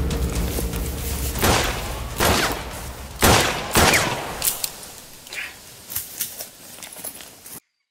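Film gunfire: a handful of loud, echoing gunshots over the first four seconds, then a few fainter shots, over a low rumbling music bed that fades away. The sound cuts off suddenly near the end.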